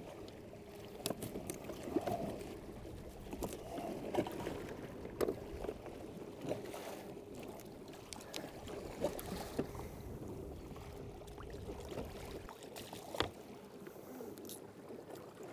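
Water lapping and trickling against a kayak hull, with scattered small knocks and splashes as a freshly caught mahi-mahi is handled and bled out over the side. A faint steady hum sits underneath until near the end.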